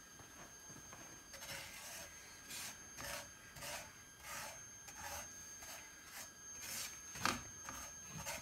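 Silicone spatula scraping and stirring dry salt around a non-stick frying pan as the salt is dry-roasted: a soft gritty scrape roughly every half second, with one heavier scrape or knock about seven seconds in.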